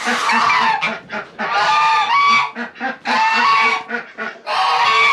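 Domestic geese honking loudly, about four long, harsh calls one after another, with a patter of short, quicker bird calls underneath.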